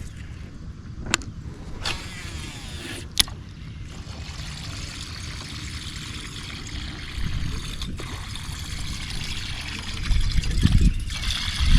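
Water trickling and splashing, with three sharp clicks in the first few seconds and a low rumble rising near the end.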